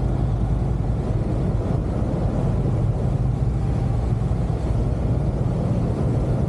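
Steady low engine drone on a car ferry's vehicle deck: an even rumble with a constant deep hum that holds level without rising or falling.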